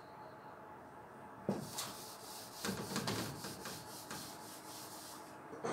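Whiteboard eraser being rubbed across a whiteboard in a run of quick back-and-forth wiping strokes, starting about a second and a half in.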